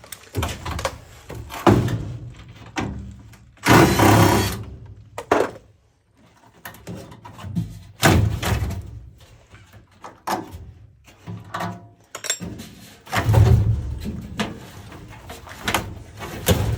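Metal clanks, knocks and scrapes from an oil burner being unbolted and pulled out of a furnace, with a loud noisy burst lasting about a second about four seconds in.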